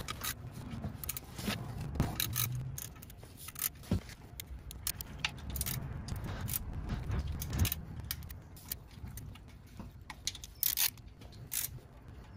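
Irregular metallic clicks and clinks from a long socket extension turned by hand, running in the oil pan bolts.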